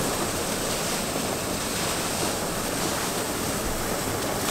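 Open rapids of the Cascade River rushing steadily below a partly frozen waterfall.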